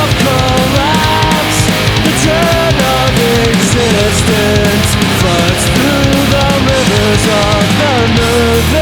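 Loud melodic punk rock with heavy-metal-style electric guitar and fast drums, with no singing, and a melody line that slides and bends.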